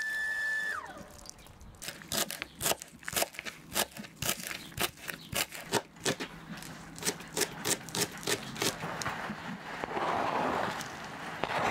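Kitchen knife chopping green onions on a plastic cutting board, quick sharp cuts at about three to four a second, followed near the end by the chopped greens being scraped off the board into a bowl. At the start a steady high tone slides down in pitch and stops.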